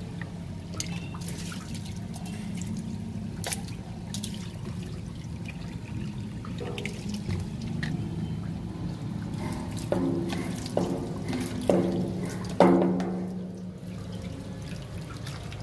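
Water running steadily out of an opened drain valve at the bottom of a water tank, flushing out rust sediment. A few brief pitched sounds come over it in the second half, the loudest about two-thirds of the way in.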